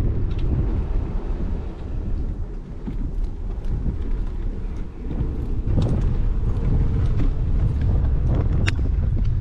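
Wind buffeting a bike-mounted action camera's microphone, mixed with the rumble of bicycle tyres over brick paving. It eases off a couple of seconds in, picks up again about six seconds in, and has a couple of sharp clicks.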